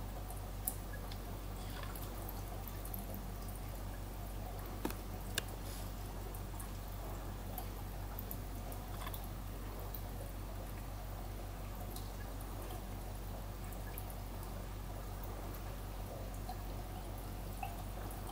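Aquarium water trickling and dripping over a steady low hum, with a few sharp ticks, the clearest about five seconds in.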